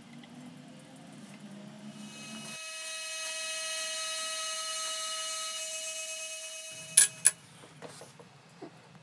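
Drill press spinning a small cutter as it mills a pocket into a hardwood block clamped in a machine vise: a steady high whine with many overtones from about two and a half seconds in to nearly seven, over a low hum before it. Two sharp clicks follow about a third of a second apart, the loudest sounds.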